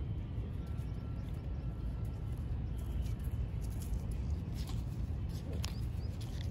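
Outdoor ambience: a steady low rumble, with a few short bird chirps and light clicks in the second half.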